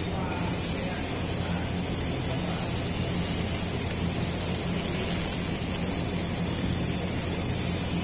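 Robotic laser welding machine at work: a steady hiss over a low, even hum.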